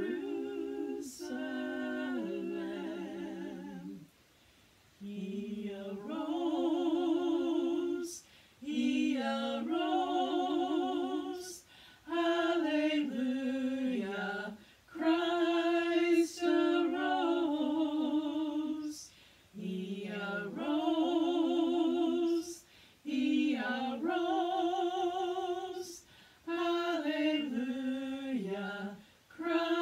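Three women singing a gospel trio song in harmony, unaccompanied, in long held phrases with vibrato and short pauses for breath between them.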